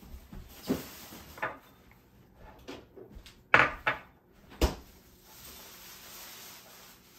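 A few short knocks and clatters of kitchen things being handled, such as cupboard doors and utensils. The loudest come about three and a half seconds in and again a second later.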